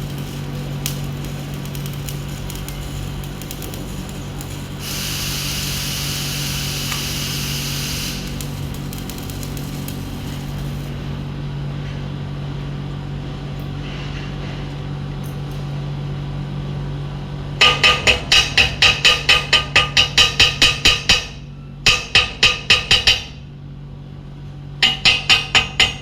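Rapid hammer blows on a steel pipe, each one ringing, in three quick runs of about four or five strikes a second starting past the middle, over a steady low hum.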